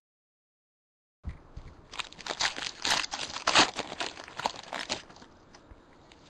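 Foil wrapper of a Bowman Draft baseball card pack being torn open and crinkled by hand. It starts about a second in as a dense run of sharp crackles, loudest around the middle, then dies away to a faint hiss.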